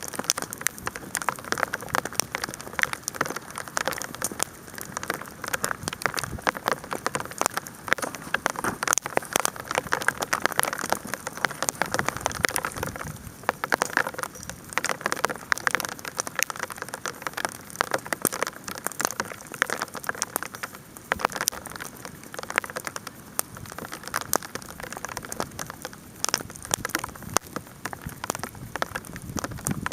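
Hail pattering down in a dense, irregular stream of sharp ticks, with a campfire crackling underneath.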